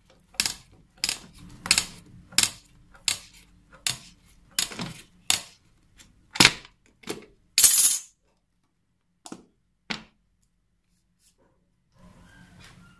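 Sharp metallic taps and clinks at the lid of a metal tin of screen-printing ink, about eleven strokes at an even pace of roughly one every two-thirds of a second, the last a longer scrape. Two lighter knocks follow.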